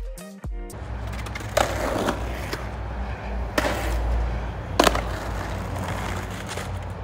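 Skateboard wheels rolling over pavement with a steady low rumble, broken by three sharp clacks of the board.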